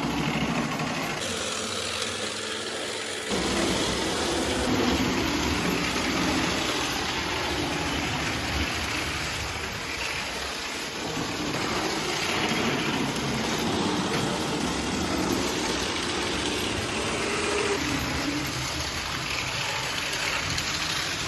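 Steady running noise of a moving train, getting louder about three seconds in.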